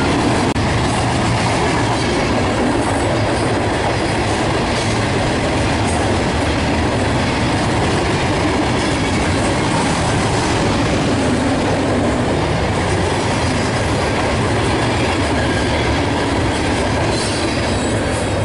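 Ballast hopper cars of a freight train rolling past on steel wheels, a loud, steady noise of wheels on rail.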